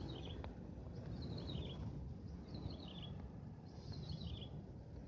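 A bird repeating a short chirping phrase that falls in pitch, four times about a second apart, over wind rumbling on the microphone.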